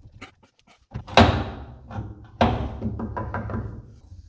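Heavy metallic clunks from the cast-iron outfeed table of a Delta 8-inch jointer being lowered. Two loud knocks come about a second apart, each ringing on, followed by a few smaller rattling knocks.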